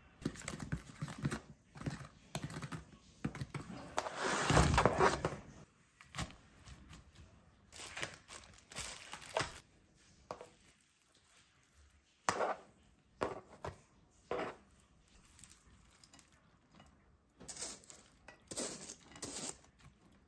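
Irregular handling noises: rustling and crinkling, with scattered knocks and clicks. A longer rustle about four seconds in is the loudest.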